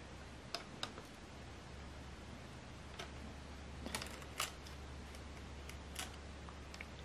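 Silicone spatula spreading and scraping thick cake batter in a paper-lined square pan, with a scattering of small clicks and taps as it knocks the pan, loudest a little after four seconds in, over a low steady hum.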